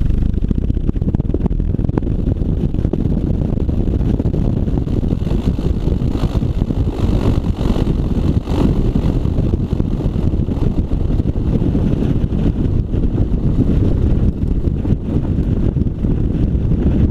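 1955 Piper Pacer's engine running at low power, its propeller turning, as the plane taxis over corn stubble. Heavy wind noise on the microphone.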